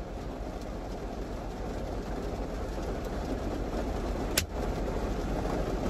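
Rain falling on the roof and windows of a car, heard from inside the cabin as a steady noise that slowly grows louder. A single sharp click comes a little over four seconds in.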